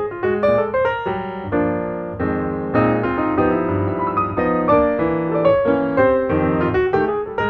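Piano music: a steady run of quick, struck notes.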